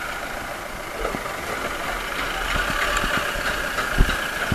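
A vehicle engine idling steadily, with a single louder thump near the end.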